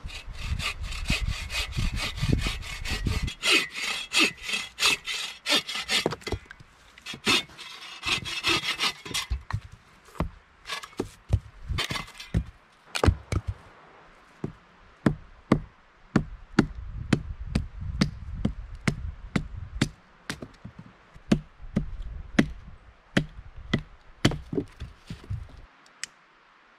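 Hand saw cutting through wood in quick back-and-forth strokes for about the first nine seconds, then a run of sharp wooden knocks or cracks, about two a second.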